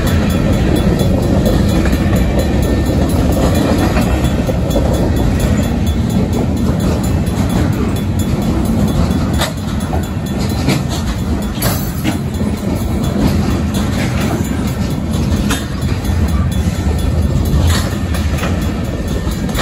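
Freight cars of a mixed freight train rolling past at a grade crossing: a steady rumble of steel wheels on rail, with clickety-clack as the wheels pass over the joints. A few sharper clanks come through, about halfway in and again near the end.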